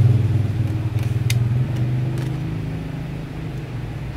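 Low, steady engine drone of a motor vehicle running, slowly fading away, with a light click about a second in.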